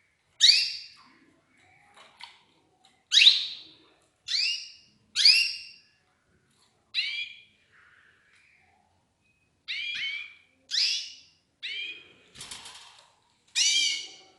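Canaries giving short, repeated calls, about ten separate notes spaced irregularly, each sliding down in pitch.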